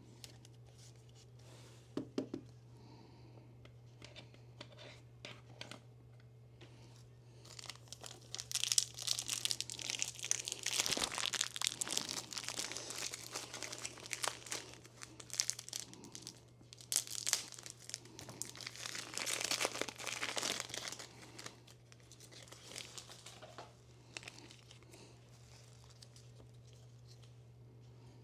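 Plastic trading-card packaging being crinkled and torn, in irregular rustling spells that are loudest from about 8 to 21 seconds in, with a sharp click about 2 seconds in. A steady low hum runs underneath.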